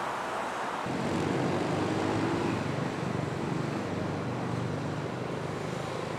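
Road traffic: a low, steady engine drone from heavy vehicles comes in about a second in, over a steady traffic hiss.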